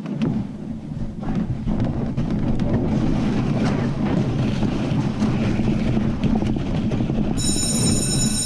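A steady low rumbling noise that swells in over the first second, with a few faint clicks; several steady high tones join about a second before the end.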